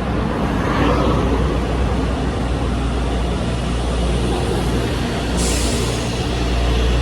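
Electric trains at a station platform: a steady low hum from the trains' running equipment, with a sudden hiss of released air about five seconds in that fades away.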